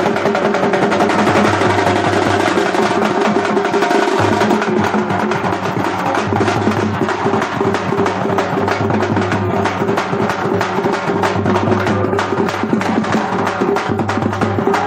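Loud music with fast, dense drumming over steady sustained tones; the drum strokes grow sharper and closer together about five seconds in.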